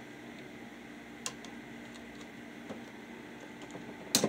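Hand work on a Square D QO circuit breaker and its wire in a breaker panel: a sharp click about a second in and a few faint ticks, then a loud double snap near the end, over a steady hum.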